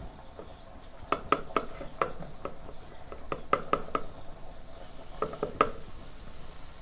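Fingers patting a ball of vada dough flat on a wet cloth over a steel plate: three short runs of quick taps, the plate clinking under them.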